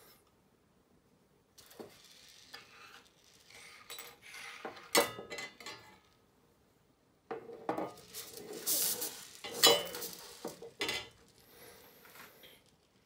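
Small metal screws and nuts clinking in a shallow aluminium tin, with thin aluminium sheet parts of a weather vane kit clattering on a wooden table. Two sharp clinks stand out, about five seconds in and just before ten seconds, with a quiet stretch between.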